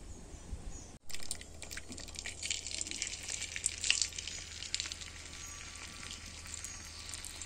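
Hot coconut oil sizzling and crackling in an iron kadai as curry leaf berries are dropped in, starting about a second in.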